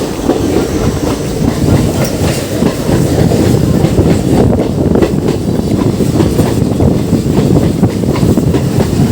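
Passenger train running, a loud steady rumble with its wheels clattering over the rail joints, heard from aboard the train.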